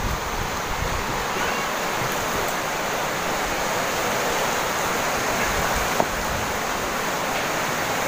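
River water rushing steadily.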